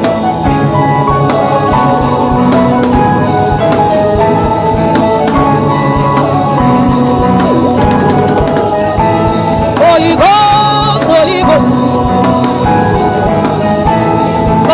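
Gospel worship music with keyboard and drum kit playing steadily, and a voice singing a short phrase about ten seconds in.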